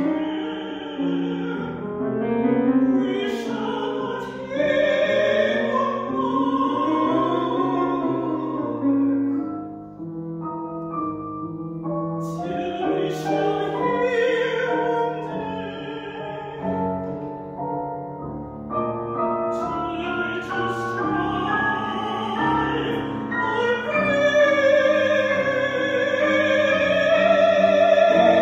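Mezzo-soprano singing a classical art song with grand piano accompaniment, her notes carrying a clear vibrato. Near the end she holds a long high note, the loudest part.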